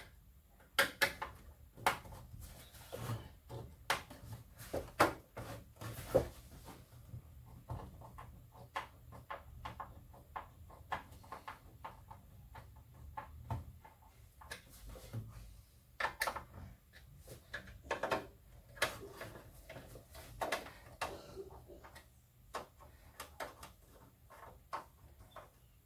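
Irregular clicks, knocks and rubbing from a computer case being turned and handled and its power-supply cables being moved, the loudest knock about six seconds in.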